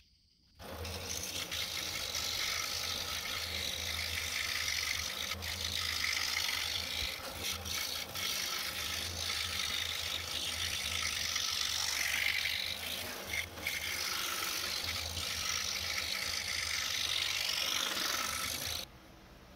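DeWalt scroll saw running, its reciprocating blade cutting through a sheet-wood sign blank as it is fed: a steady low hum under a hiss of cutting. It starts about half a second in and stops abruptly shortly before the end.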